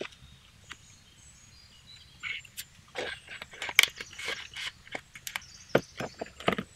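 Paper banknotes and a small paper envelope rustling and crinkling as the bills are handled and slipped inside, with a few sharp taps and clicks. The handling noise starts about two seconds in.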